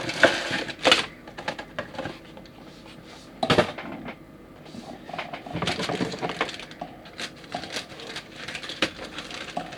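Small plastic model-kit parts and their plastic bag being handled: crinkling and light clicks and clatters, with one louder clack about three and a half seconds in.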